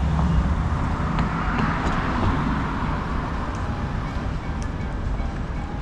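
Street traffic: a car's tyre and road noise swells and fades as it passes, about two seconds in, over a steady low traffic rumble.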